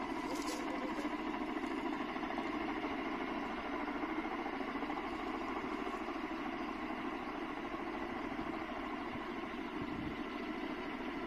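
Firefighting helicopter hovering over the water with a bucket on a line, its engine and rotor making a steady drone with several steady tones on top.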